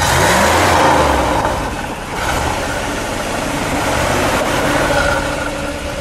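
1960 Ford Thunderbird's 430 cubic-inch Lincoln V8 revved hard through its exhaust, then easing back and running steadily after about two seconds. The rev clears carbon from an engine that hasn't been run in a while.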